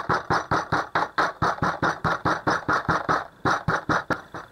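A golok, a heavy chopping knife, striking a slab of beef on a wooden cutting board again and again, about six strikes a second, to tenderise the meat by breaking up its fibres. The strokes pause briefly about three seconds in, then come weaker and stop near the end.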